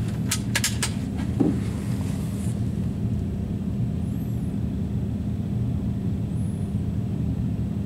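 Steady low rumble with a constant hum, like a motor running, with a quick cluster of sharp clicks in the first second.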